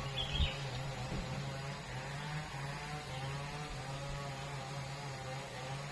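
A small engine running steadily, its hum wavering slightly in pitch, with a brief high chirp just after the start.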